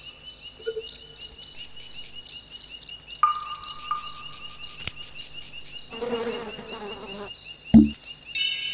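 Insects chirping: a steady high trill, with quick high chirps repeating about three to four times a second over the first few seconds. A short, low thump comes near the end.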